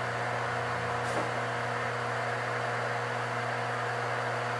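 Steady mechanical hum with an even hiss, unchanging throughout and with no cutting or knocking.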